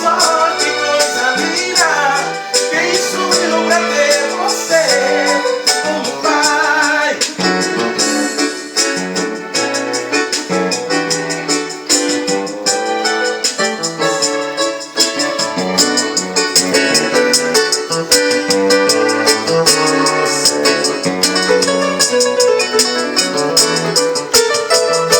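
Roland EM-15 arranger keyboard played live: a keyboard melody over its own accompaniment, with a bass line and a steady drum beat. The lead slides between notes in the first few seconds.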